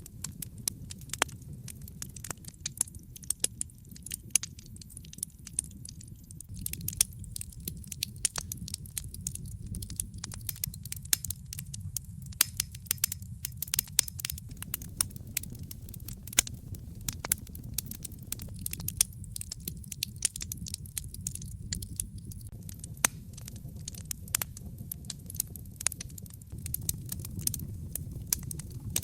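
Wood fire crackling, with frequent irregular sharp pops and snaps over a steady low rumble of the burning fire.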